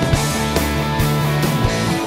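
Rock music with guitar: sustained chords over a steady beat.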